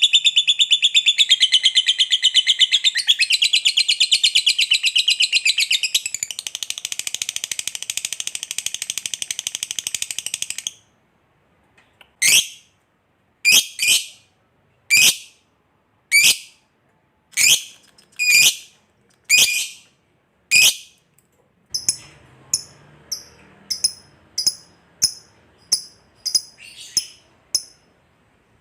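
Lovebird's long, rapid, high-pitched chattering trill (ngekek panjang), which cuts off about ten seconds in. Then come single sharp chirps about a second apart, and near the end quicker, shorter chirps.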